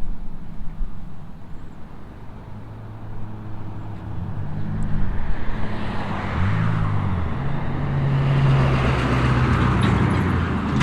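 Traffic on a busy road: cars passing close by. Their engine and tyre noise swells from about four seconds in, with engine notes rising and falling in pitch as vehicles go past.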